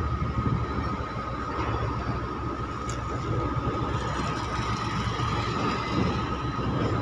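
Steady drone of cargo-handling machinery at work on a container quay: engines running with a low rumble and a constant high whine, no pauses.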